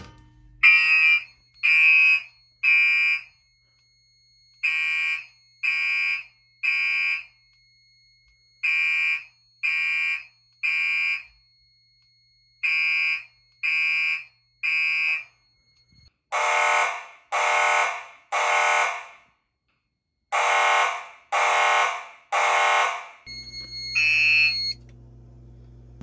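Gentex fire alarm horns (SHG and GMS horn/strobes) sounding the temporal-3 evacuation code: three blasts, a pause, then repeat, after a pull station has been activated. About 16 s in the blasts turn fuller and lower. Near the end they stop, leaving a low steady hum and one short beep.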